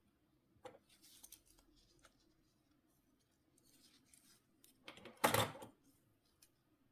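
Small parts of a Nokia C5-00 mobile phone being handled: light plastic clicks and scrapes, with one louder rasping scrape a little after five seconds in.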